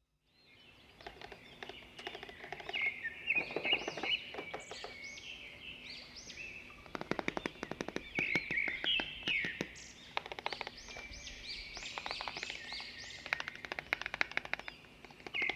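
Small birds chirping and twittering, with many short rising-and-falling chirps and several quick rattling trills.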